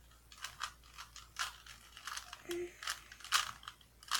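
Rubik's Cube being twisted by hand: a run of irregular sharp plastic clicks as the layers turn.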